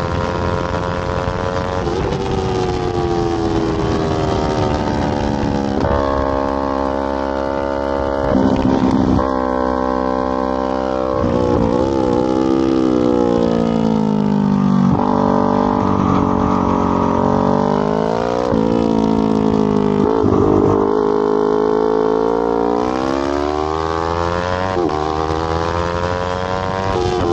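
Sport motorcycle engine at speed, its revs climbing and dropping back several times as the rider shifts gears, with a long slow fall in pitch midway as it slows, over a steady rush of wind.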